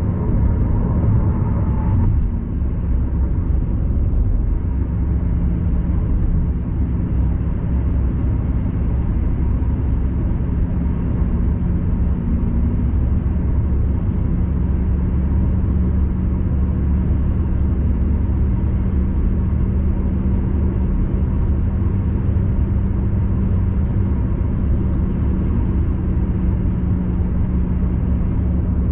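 Steady low rumble of a car cruising at expressway speed, tyre and engine noise heard from inside the cabin, with a faint steady hum under it.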